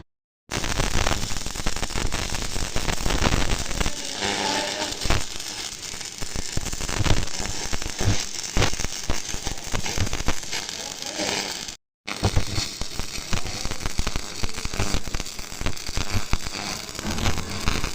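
Electric arc welding: a dense, steady crackle and sputter of the arc while a bead is laid, cutting out abruptly for a moment about twelve seconds in.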